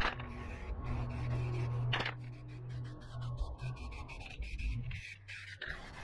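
Aerosol spray can of matte black primer-and-paint hissing as a coat is sprayed onto a metal PC case panel. The spray thins out about three seconds in, with a sharp click about two seconds in.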